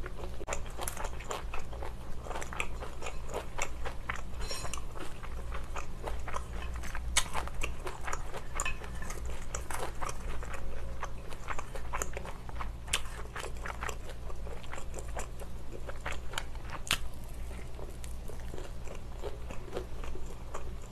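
Close-miked chewing and biting of sauce-coated fried snacks, with irregular crunches and wet mouth clicks throughout. A steady low hum runs underneath.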